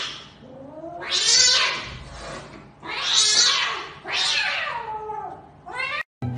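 Cat yowling: about four long, high-pitched, wavering calls that rise and fall in pitch, the threat yowls of a cat in a standoff with another cat. The sound cuts off suddenly near the end.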